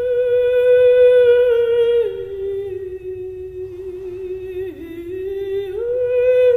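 A contralto voice sings a slow wordless melody in long held notes. It holds one note, steps down to a lower note about two seconds in, sags briefly, then rises back to the first note near the end.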